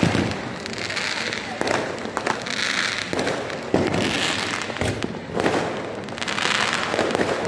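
Many fireworks and firecrackers going off across the city: a continuous crackle of distant bursts, with several sharp louder bangs.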